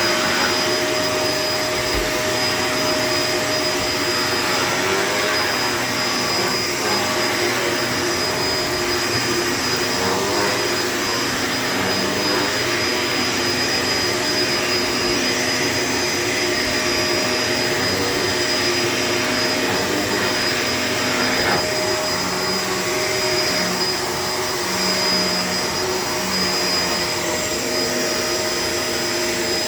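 Shark LA702 Lift-Away upright vacuum cleaner running steadily: a constant motor hum and airflow hiss with a high whine over it.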